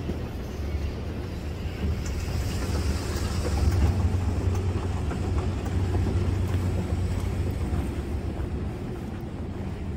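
Steady low rumble of a large, empty airport concourse, swelling about three to four seconds in, with a faint hiss above it.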